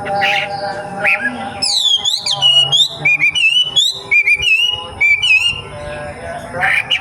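Young wild-caught wambi singing a fast run of clear whistled notes. The notes sweep and loop up and down in quickly repeated phrases with short breaks.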